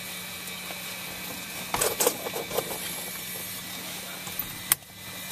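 Handling noises in a parked Cessna 172's cabin before engine start: a cluster of clicks and rustles about two seconds in and one sharp click near the end, over a steady low hum.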